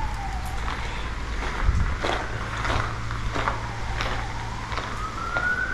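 A police siren wailing in a slow rise and fall: falling early on, then rising again to a peak near the end. Footsteps crunch on rubble and grit throughout.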